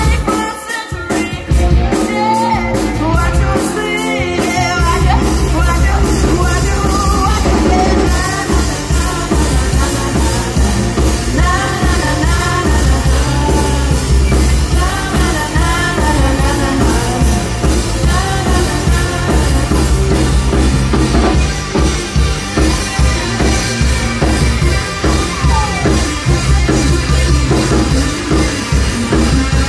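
A live rock band playing loud through a PA: electric guitar, bass guitar and drum kit with a lead vocal. There are a few stop-start breaks in the first four seconds before the full band drives on continuously.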